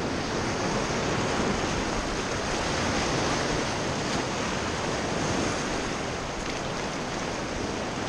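Steady rush of fast-flowing whitewater on the Zanskar River around an inflatable raft.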